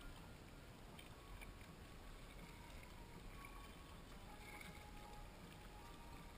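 Faint water sounds from a kayak being paddled: paddle dips and water moving along the hull, with a few short, faint high chirps.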